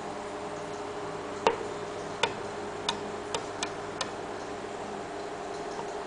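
A myna pecking at its own reflection in window glass: six sharp, irregular taps of beak on glass within about two and a half seconds, the first the loudest, over a steady background hum.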